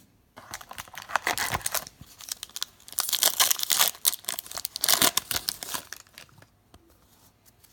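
A trading card pack wrapper being torn open and crinkled, a dense run of tearing and crackling, loudest in the middle and trailing off into a few small crinkles near the end.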